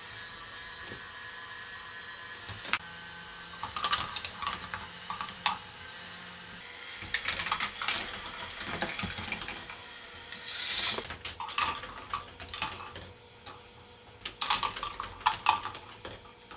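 K'nex ball machine: plastic balls clattering and clicking along plastic track pieces, in irregular bursts of rapid clicks that grow busier after about seven seconds, over a steady hum.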